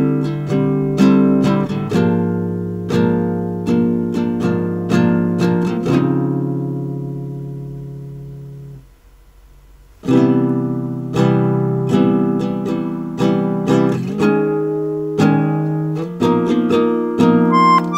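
Background music on acoustic guitar, single plucked notes and chords ringing out. Around the middle a chord is left to fade away, with a brief pause before the playing picks up again.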